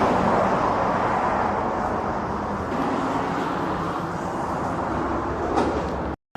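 A vehicle running, with a steady engine rumble and road or traffic noise, which cuts off abruptly near the end.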